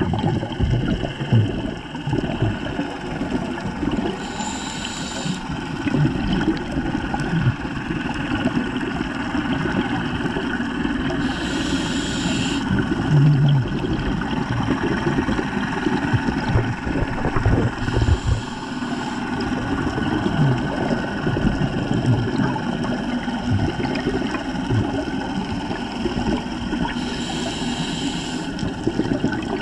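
Underwater rumble of water moving past the camera housing, with many low knocks, broken four times, about every seven seconds, by a short burst of hissing bubbles: a scuba diver's exhaled breath venting from the regulator.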